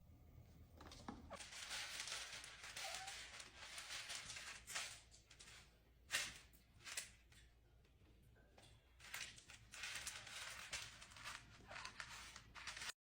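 Faint rustling and crinkling, broken by a few short sharp sounds about five to seven seconds in, with a near-silent pause after them.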